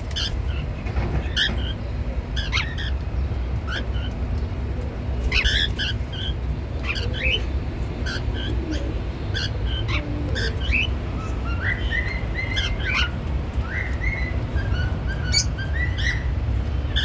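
Cockatiels chirping: a run of short chirps and brief rising whistled calls, over a steady low hum.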